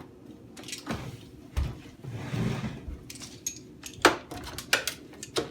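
Clicks, knocks and a brief scrape of jukebox cabinet parts being handled, with a sharp knock about four seconds in.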